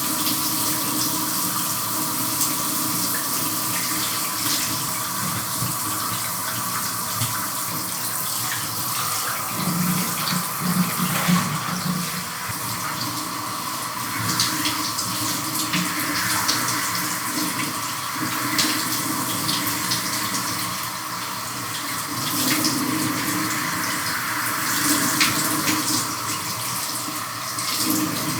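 Shower running, its spray pattering unevenly as it hits a body and the tub or floor, with small splashes throughout.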